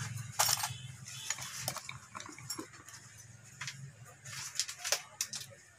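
Scattered light clicks and taps of wire and small tools being worked into the terminals of a switch board, over a faint steady low hum.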